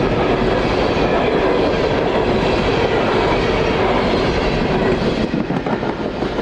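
Freight train cars rolling past, with a steady rumble and the clickety-clack of wheels over the rails. About five seconds in the sound thins out and drops a little.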